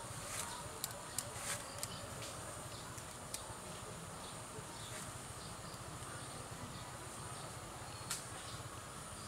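Sharp snips of pruning shears cutting twigs on a Ficus bonsai, several quick ones in the first two seconds and then a few spaced out, over a steady high insect drone.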